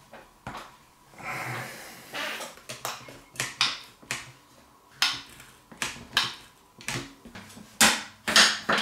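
Plastic one-handed bar clamp being handled on a wooden workbench, giving a series of sharp clicks and knocks at about two a second, loudest near the end, as it is worked to squeeze a knife's cork handle onto the tang. A brief rubbing, handling noise comes about a second in.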